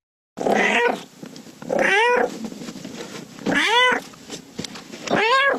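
Recorded cat meowing: a short rough sound about half a second in, then three meows about a second and a half apart, each rising then falling in pitch.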